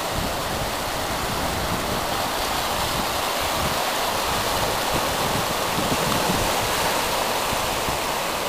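Ocean surf: small waves breaking and washing through shallow water in a steady, even rush, with wind buffeting the microphone.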